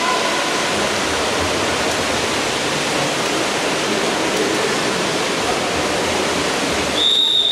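Steady rushing wash of water-polo splashing echoing in an indoor pool hall. Near the end, a long, high, steady referee's whistle begins.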